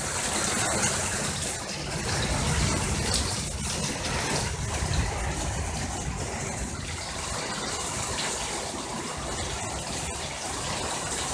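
Heavy rain pouring steadily, with water gushing from a leaking roof gutter.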